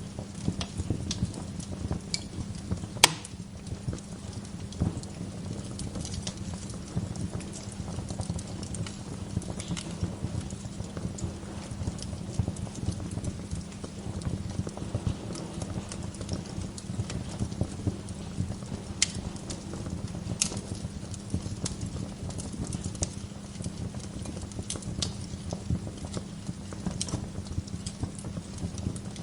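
Wood fire burning in a fireplace, crackling and popping irregularly over a steady low rumble, with one sharp, loud pop about three seconds in.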